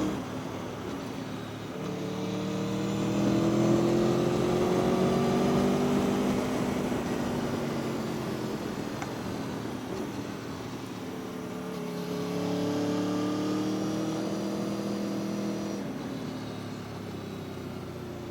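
Aprilia Tuono V4 1100's V4 engine pulling up through the revs twice, its pitch rising each time, with the throttle eased off in between and again near the end.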